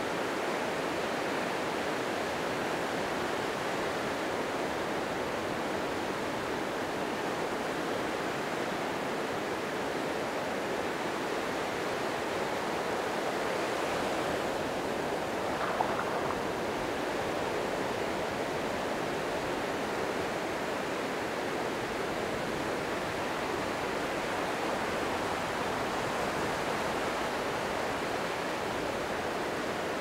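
Gentle, wind-driven summer surf washing continuously onto a sandy beach, a steady rushing hiss of small breaking waves. A single brief click sounds about halfway through.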